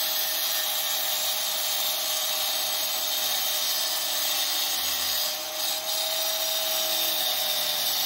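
Angle grinder cutting into wall tile, running steadily with a constant whine over a gritty hiss; it eases off briefly about two-thirds of the way through.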